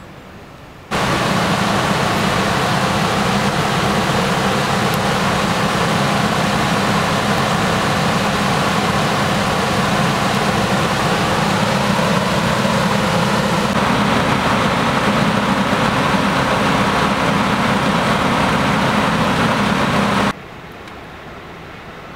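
Loud, steady engine noise: a low hum under a broad hiss, holding without change. It cuts in abruptly about a second in and cuts off abruptly near the end.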